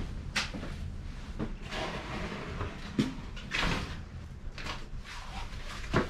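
Irregular knocks and clacks of a mountain bike being handled and set up for work, over a steady low hum.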